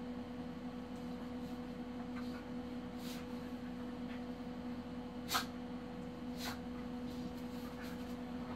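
A steady low hum with a few faint short clicks or scuffs, the sharpest about five seconds in.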